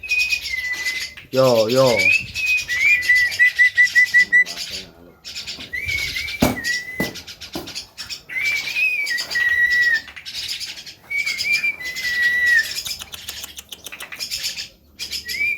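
Javan myna (jalak kebo) calling: repeated short whistled phrases that rise and fall, laced with harsh raspy chatter. A brief lower wavering warble comes about a second and a half in, and a quick run of repeated notes about three seconds in.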